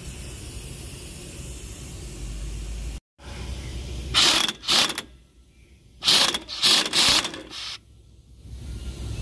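Impact wrench hammering on the upper mounting nut of a truck's shock absorber, in short bursts, loosening it to remove the old leaking shock. Two bursts come about four seconds in, then three more a second or so later.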